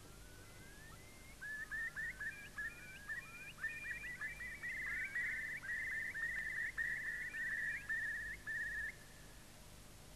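Birds calling, many short overlapping calls that each rise quickly and then hold, starting about a second and a half in and dying away about a second before the end.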